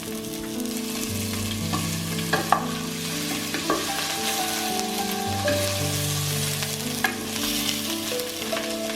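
Food sizzling in a frying pan while being stirred, with a few sharp knocks of the utensil against the pan.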